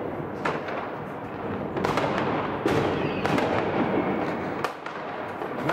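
Fireworks and firecrackers going off: several sharp bangs over continuous crackling.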